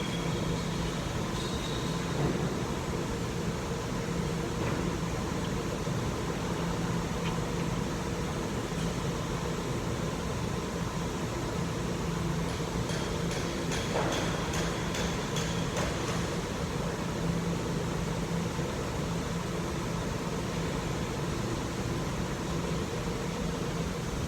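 A steady mechanical hum with a low tone. Over it, a few light clicks and taps come about halfway through as a new front ABS wheel-speed sensor is fitted by hand.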